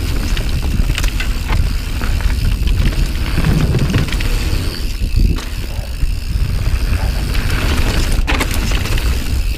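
Santa Cruz Nomad carbon mountain bike descending a dirt trail: heavy wind buffeting on the camera microphone, tyre rumble, and frequent short clicks and rattles from the bike as it rolls over roots and rocks.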